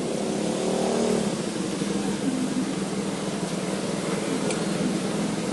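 Yamaha Jupiter Z's single-cylinder four-stroke engine running steadily, its pitch rising briefly about a second in.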